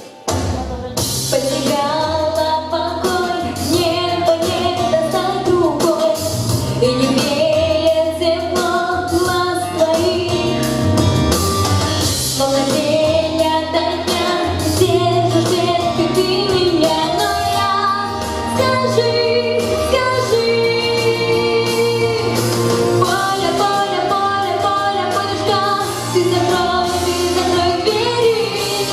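A song with a sung melody over an accompaniment with a bass line and a steady beat, starting just after a brief break at the very beginning.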